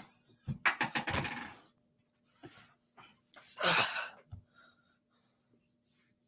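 Rustling and knocking from a person moving close to a laptop webcam microphone. A cluster of short knocks and rustles comes about half a second in, and a louder rush of noise comes about three and a half seconds in.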